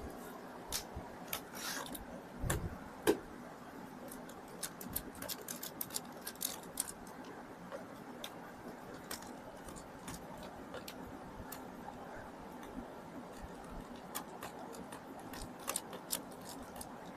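Light, irregular clicks and taps of a precision screwdriver taking screws out of a laptop's plastic bottom panel, with a low thump and a louder knock about three seconds in.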